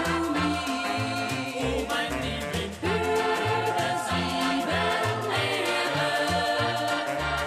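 Background music: a song with singing voices over a pulsing bass line.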